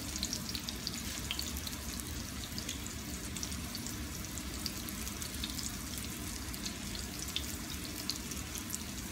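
Breaded skin-on salmon fillets frying in hot grease in a frying pan: a steady sizzle with many small scattered pops and crackles.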